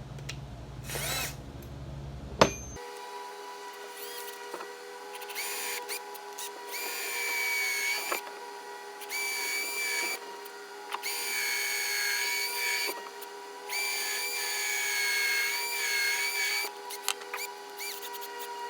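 Power drill running in a series of start-stop bursts, each one to three seconds long, with a steady whine while it runs. A single sharp click comes just before the drilling starts.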